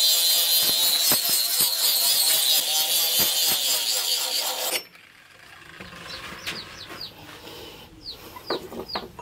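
Angle grinder with an abrasive disc grinding the steel axe head: a steady high whine with a grinding hiss, which cuts off suddenly about halfway through. After that, much quieter chicken clucks and short chirps.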